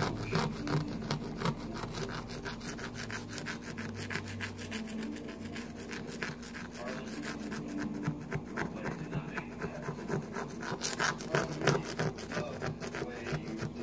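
Tortoise biting and chewing food at a metal bowl, a fast run of rasping, crunching bites several times a second, a few louder ones near the end.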